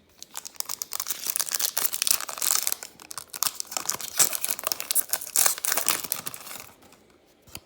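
A trading card pack wrapper being torn open and crinkled: dense crackling rustle that stops about seven seconds in.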